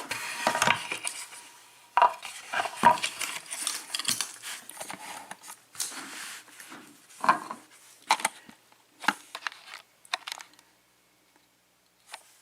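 Small metal parts clicking, clinking and scraping as a pin-tumbler lock cylinder and its picking tools are handled. The clatter comes in irregular runs and stops about two seconds before the end.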